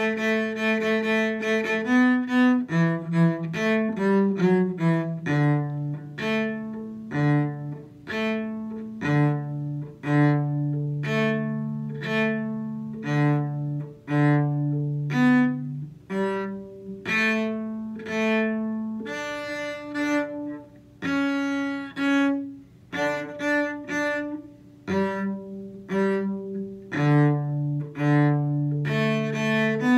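A cello bowed through a lively tune in its lower range. The line runs as a string of short, separate notes mixed with notes held for a second or so, with quick runs of notes about two to six seconds in.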